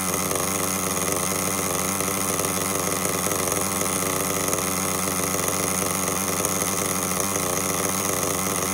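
Thunder Tiger nitro glow engine in an RC buggy, idling steadily through its tuned pipe with no revving.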